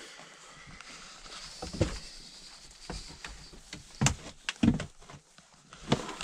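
Irregular knocks and thuds on old wooden boards, about five over a few seconds with faint shuffling between, the loudest about four seconds in: footsteps and handling in a cramped wooden house.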